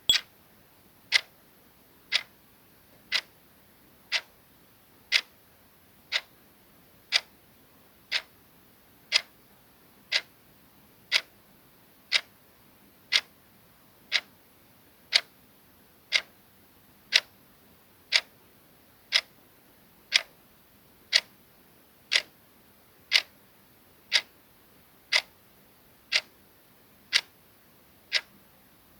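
Clock ticking, one sharp tick each second in a steady, even rhythm.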